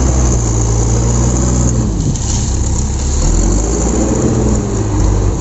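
JCB backhoe loader's diesel engine working as its front bucket pushes and spreads soil. The engine note holds steady, dips about two seconds in, then rises and falls as the machine takes the load.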